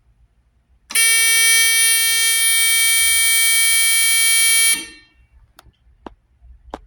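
Security alarm's buzzer, set off by detected movement, sounding one loud, steady, unbroken tone for about four seconds before cutting off.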